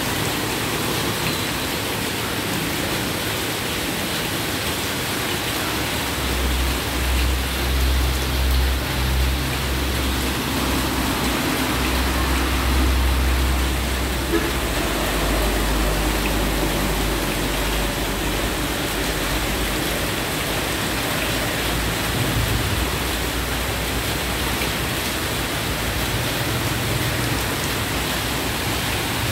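Heavy rain pouring steadily as a continuous hiss, with vehicles driving through the flooded road. A low engine rumble comes in about six seconds in and lasts several seconds.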